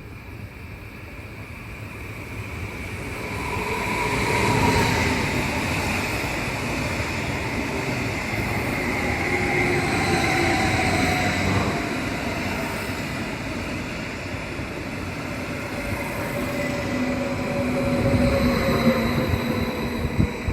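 Passenger train moving on the rails: its running noise swells about four seconds in and stays up, with a few tones that slowly slide down in pitch.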